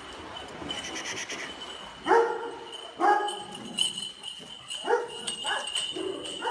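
Dog barking in short single barks, about five of them, spaced unevenly and the later ones closer together.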